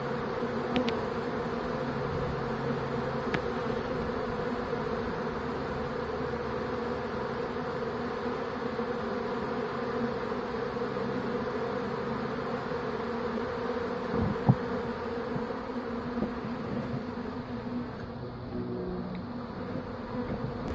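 Steady, dense buzzing of a honey bee swarm in flight around its new hive boxes, with a brief knock about fourteen seconds in.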